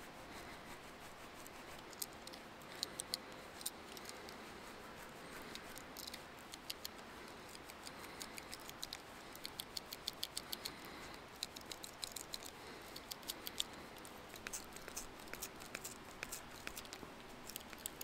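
Swiss Army knife reamer twisted back and forth into the end of a small branch, boring a hole in the wood: faint scraping with irregular runs of small sharp clicks as the blade bites. The clicks start about two seconds in and are busiest midway.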